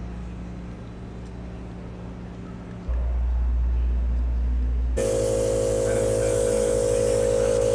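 Steady machine-like hum holding several fixed pitches. It changes abruptly about three seconds in, and again about five seconds in, where it grows louder and carries a hiss.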